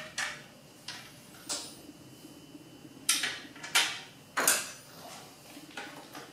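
Handling noise of hard plastic and metal parts: a string of light clicks and knocks, a few of them louder in the middle, as the circuit board and its black plastic housing are picked up and set down on a workbench.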